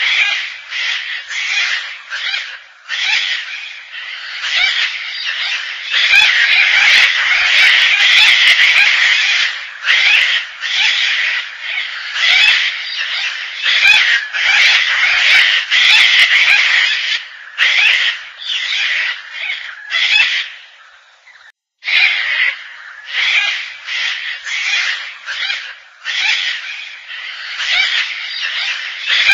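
Gang-gang cockatoo calling over and over, the calls running almost without break for a few seconds about a quarter of the way in, with a short pause about two-thirds of the way through.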